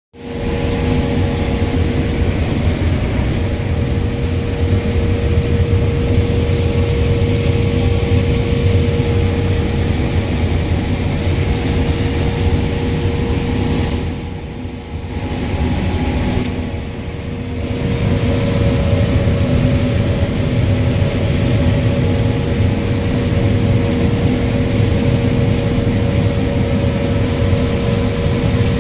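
Claas Lexion 595R combine harvesting corn with a 16-row Geringhoff corn head: a steady engine and machinery drone with a constant hum running through it. The drone dips briefly twice, about halfway through.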